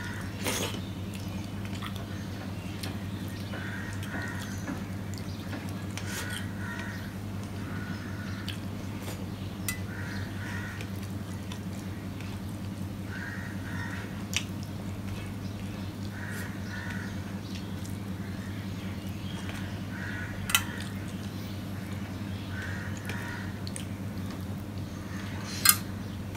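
Eating by hand from a steel plate: a sharp click of fingers against the steel every few seconds, the loudest about 20 seconds in and near the end, over a steady low hum. A bird calls in the background in short groups of two or three every few seconds.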